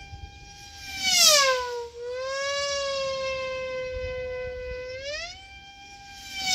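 F3E electric pylon-racing model airplane lapping the course. Its high-pitched motor-and-propeller whine swells and drops in pitch as it passes, loudest about a second in. It comes round and rises again near the end.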